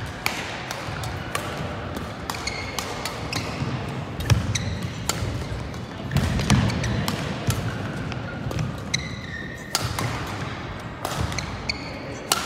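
Badminton play: sharp racket hits on the shuttlecock, court shoes squeaking on the court mat, and footfalls thudding as players move.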